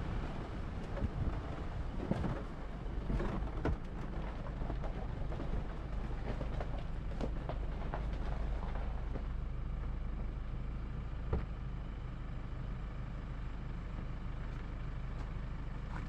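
Jeep Wrangler Rubicon running with a steady low engine rumble while driving over snow, with scattered knocks and crackles over the first half that give way to a smoother run.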